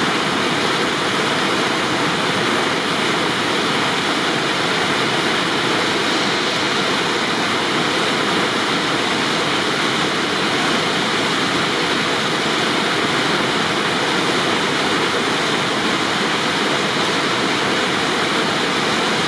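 Whitewater rapid rushing steadily as the river pours over and around boulders at low water, about 810 cfs.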